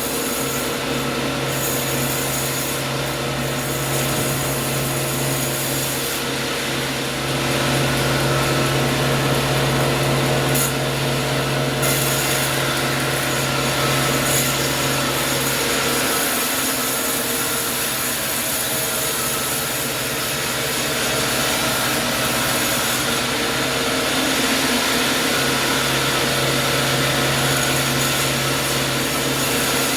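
Sawmill saw cutting through wood under a steadily running motor, a continuous hum with a grinding, rasping wash over it. The low hum eases for several seconds past the middle, then comes back.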